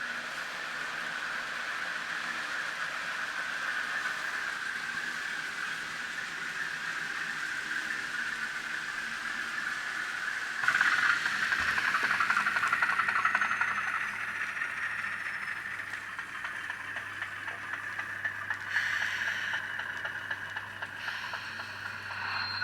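N gauge model of the LMS 10001 diesel-electric locomotive running, its DCC sound decoder playing a diesel engine sound through a tiny on-board speaker, heard as a steady tinny hissing drone. It grows louder for about three seconds about halfway through, and a low hum comes in just after.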